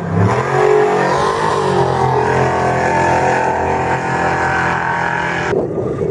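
Trophy Truck Spec off-road race truck engine revving and pulling hard, its pitch rising in the first second and then held at high revs. The sound changes abruptly near the end.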